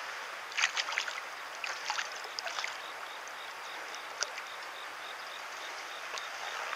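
A hooked carp struggling at the surface in shallow water: two short clusters of splashes and crackles, about a second in and again around two seconds, and a single one near four seconds, over a steady hiss.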